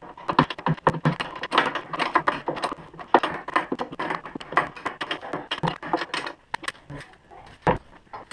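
Irregular metallic clicks and clinks of hand tools working on a bolt in a snowmobile's rear suspension, several a second with short pauses.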